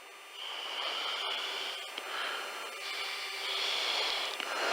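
Radio static: a steady hiss on the aircraft radio channel between transmissions, coming up about a third of a second in.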